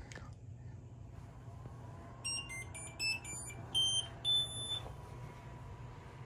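Anycubic Kobra Plus 3D printer's buzzer playing its power-on tune as the printer boots: a quick run of about seven beeps of changing pitch, the last one held longest, over a steady low hum.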